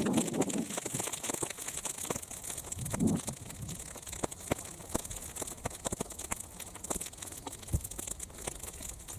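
Open fire of sun-dried weeds crackling, with many sharp irregular pops and snaps over a steady hiss. Two low muffled rumbles rise near the start and about three seconds in.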